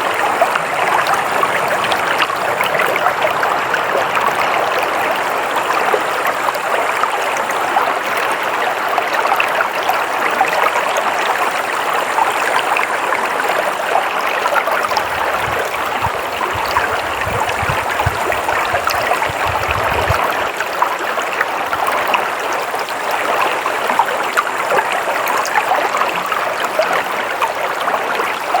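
Flowing stream water running steadily, an even rushing wash of water. A low rumble joins it for a few seconds past the middle.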